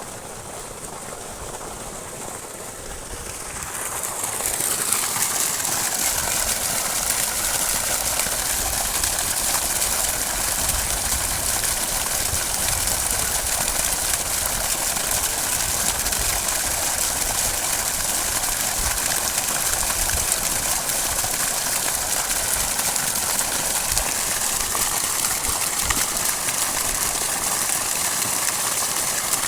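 Repaired farm water-pump motor running with water rushing from it. The sound swells about four seconds in, then holds steady.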